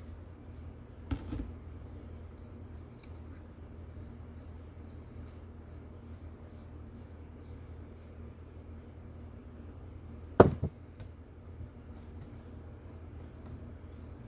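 Small carburetor parts and a screwdriver being handled on a workbench: a sharp knock about a second in and a louder one about ten seconds in, over a steady low hum.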